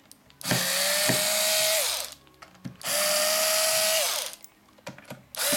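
Electric screwdriver running in short bursts, undoing the screws of a speaker's base plate: two runs of about a second and a half each, and a third starting near the end. Each run's whine rises slightly in pitch and falls away as the motor stops.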